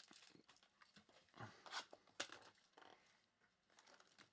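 Faint handling of trading cards: a few soft rustles and sharp clicks, the loudest about one and a half to two seconds in.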